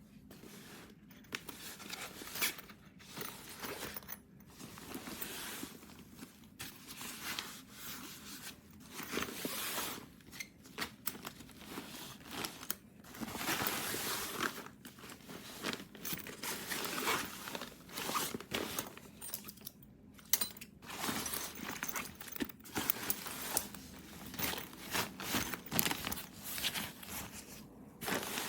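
Handling noise: irregular crinkling, rustling and scraping, broken by sharp clicks and knocks, going on throughout.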